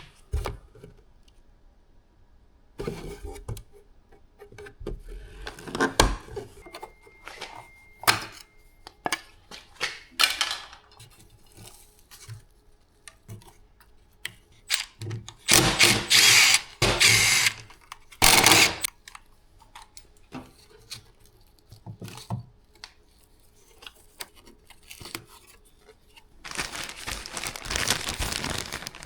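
Tool work on a car's side mirror: scattered clicks and knocks, with several short, loud bursts of noise about halfway through and a longer stretch of noise near the end.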